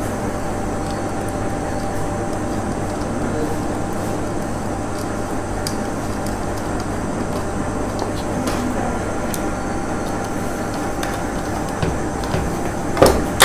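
A steady machine-like hum runs throughout, with a few faint light clicks as insulated wires are twisted and fitted onto switchboard terminals.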